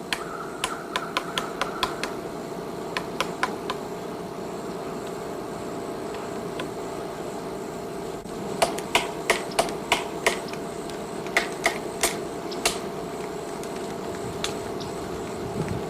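Woodpecker pecking at wood: single sharp knocks, several in a row at about three a second, in runs broken by pauses, over a steady background hiss.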